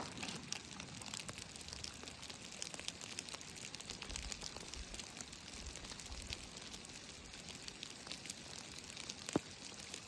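Hail falling: many small, quick ticks of hailstones over a steady hiss, with one sharper click near the end.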